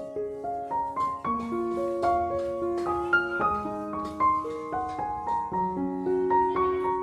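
Background piano music: a gentle melody over held chords, with notes struck at a walking pace.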